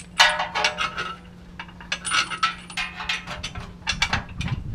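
Steel hitch bolts and washers clinking and rattling against metal in three irregular bursts of sharp clicks, as they are handled and fed into the bolt holes. A faint steady low hum sits underneath and stops about four seconds in.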